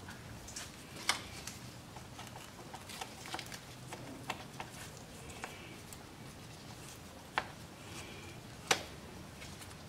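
Scattered light clicks and taps of a hand working at a motorcycle engine's case cover, with three sharper metal knocks: about a second in, past seven seconds and near the end. The cover is stuck and won't come off.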